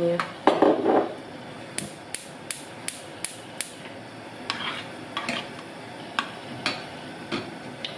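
Metal teaspoon stirring melting gelatin in a small stainless steel saucepan, clicking and tapping against the pan's bottom and sides. One heavier knock comes about half a second in, then a quick run of light, regular taps and a few scattered ones.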